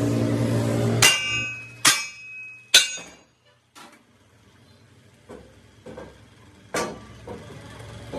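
Hammer blows on metal: three loud ringing strikes in the first three seconds, then a few lighter, spaced knocks.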